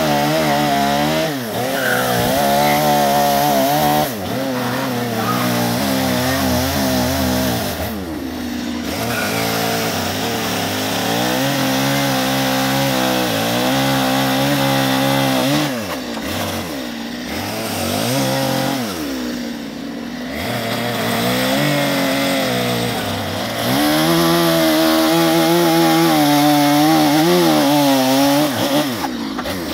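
Two-stroke chainsaw cutting into a western red cedar log, the engine revving up under the cut and easing off again several times as the carver shapes the wood.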